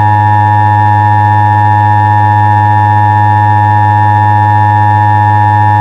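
Emergency Alert System attention tone: a loud, steady electronic alert tone made of several pitches sounding together, held without any change or break.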